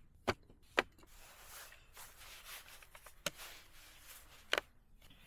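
Branches being handled and tied with twine: two sharp snaps of wood in the first second, a soft rustle of branches, then two more snaps.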